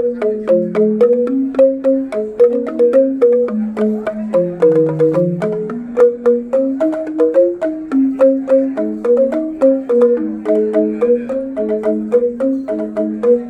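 Two Balinese rindik, bamboo tube xylophones, played together with mallets: a quick, continuous melody of short wooden-toned notes.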